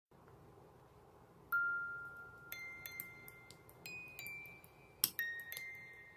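Slow background melody of single bell-like ringing notes in the style of a glockenspiel, starting about a second and a half in over faint hiss; each note is struck cleanly and left to ring.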